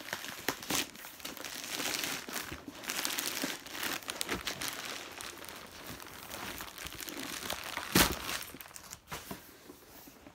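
Shoe-delivery packaging being crinkled and torn open by hand: continuous irregular crackling and rustling, with one sharp knock about eight seconds in.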